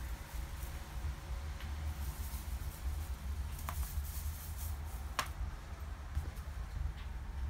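Quiet room tone: a steady low rumble with a few faint, short ticks and rustles, one about halfway through and another a second or so later.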